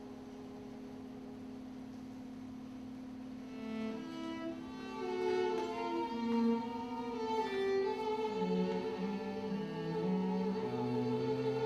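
Contemporary classical string music: a steady held drone for the first few seconds, then violin and lower bowed-string lines enter about four seconds in, the violin holding a long note with vibrato, and a low note sounding near the end.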